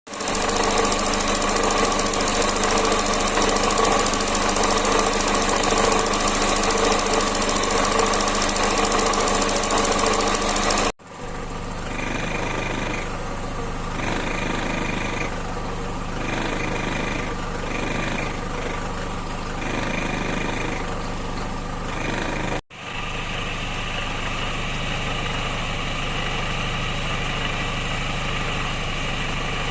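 Car engine running with the abnormal noise of a vent valve, the third replacement valve still making the noise. In the middle stretch a high tone comes and goes several times over the engine.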